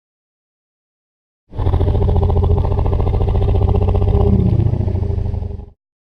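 A deep, rough dragon roar sound effect, edited together from dinosaur and kaiju roars. It comes in after a second and a half of silence, lasts about four seconds, and cuts off.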